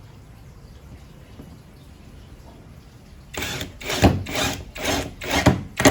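Rhythmic rasping strokes of hand-tool work on material, about two a second, starting a little past halfway, after a stretch of faint background noise.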